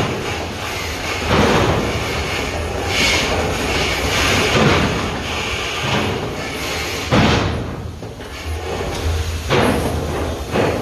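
Shaft mucking: broken rock being loaded out with heavy clanks and slams of rock on steel, about five of them a couple of seconds apart, over a steady loud rush of machinery.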